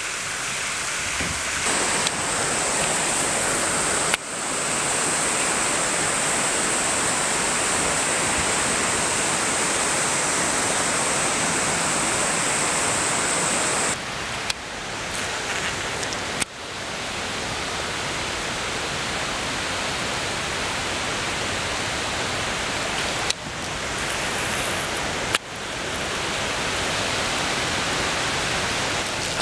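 A small waterfall and a stream inflow pouring into a pool: a steady rush of falling water, its level and tone changing abruptly several times.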